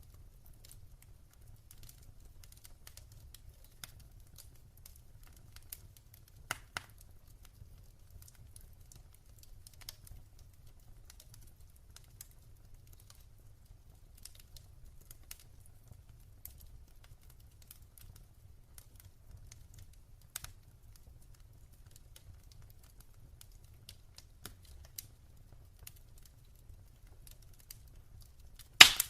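Wood fire burning in a fireplace, crackling with scattered sharp pops, one loud pop near the end.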